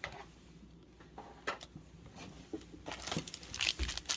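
Trading cards being handled, with a few scattered clicks and slides, then a card-pack wrapper crinkling from about three seconds in.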